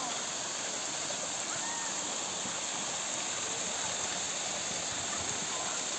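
Steady rush of water spilling over the stone edge of a thermal pool and cascading down the rocks into a stream.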